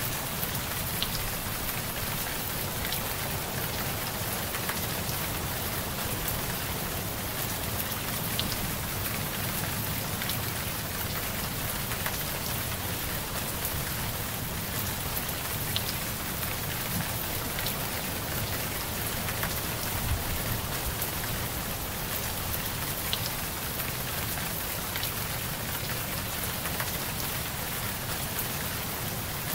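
Steady rain: an even hiss with scattered drop ticks, playing as a subliminal's masking track over layered affirmations.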